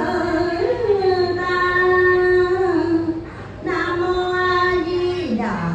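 A woman's voice chanting a Buddhist prayer over a microphone in two long held notes, the second falling in pitch near the end.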